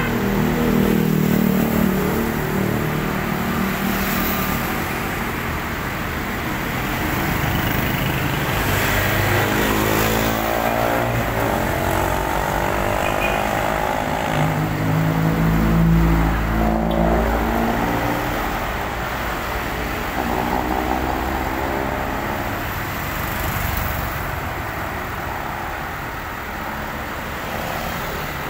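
Road traffic: car engines passing close by, their pitch rising and falling over a steady low engine rumble.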